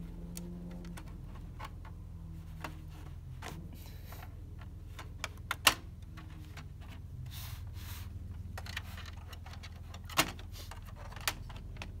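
A plastic pry tool worked along the seam of a Dell Inspiron 3558 laptop's bottom case, making scattered clicks and snaps as the case's plastic clips come unlatched. The sharpest snaps come about halfway through and again near the end.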